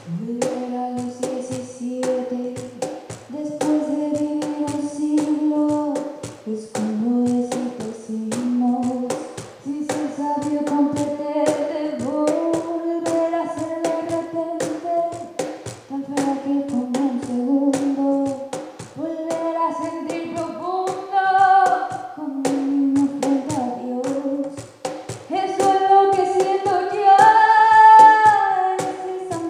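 A teenage girl sings a song into a microphone over instrumental accompaniment with a steady strummed or struck pulse. Her voice climbs higher and louder near the end.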